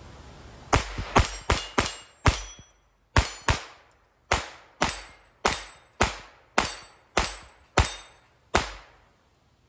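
Kel-Tec CP33 .22 LR pistol firing fifteen rounds of CCI standard-velocity ammunition at an uneven pace of about two shots a second, with two short pauses early on. Each shot trails off in an echo, and the pistol cycles every round without a jam.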